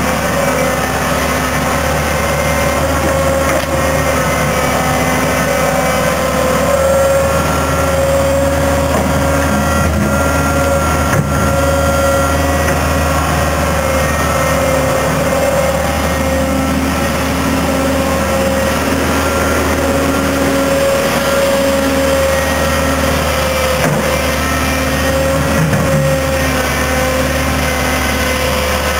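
Fiat Hitachi EX165 tracked excavator's diesel engine running steadily as the machine works its boom and bucket, with a steady whine over the engine note.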